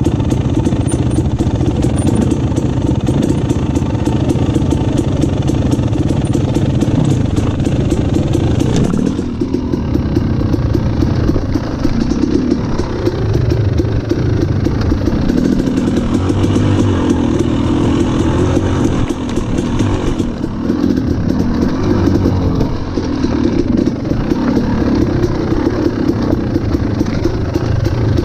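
KTM dirt bike engine running as the bike is ridden along a rocky trail, its note rising and falling with the throttle.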